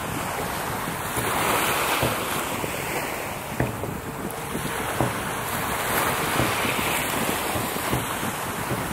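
Sea waves washing and wind buffeting the microphone, a steady rushing noise, with a couple of brief knocks near the middle.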